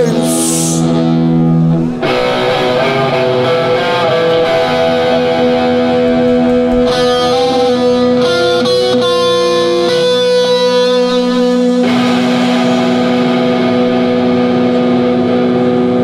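Live rock band music led by a distorted electric guitar holding long sustained notes, the notes changing about two seconds in and again near twelve seconds in.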